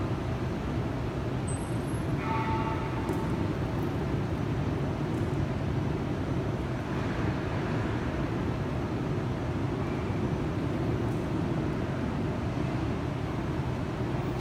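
Steady low rumble of a large, empty railway station concourse, with a brief high ringing tone about two seconds in.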